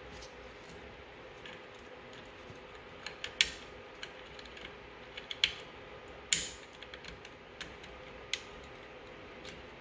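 Scattered small plastic clicks and taps as a flat cable's connector is handled and pressed into its socket on an Anycubic Kobra Max 3D printer's printhead. There are about seven irregular clicks, the sharpest about three and a half and six seconds in.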